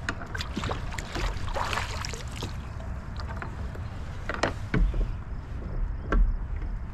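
Plastic fish-measuring board handled and stowed on a fishing kayak: rustling and scattered hollow knocks against the hull, with a few sharper knocks in the second half.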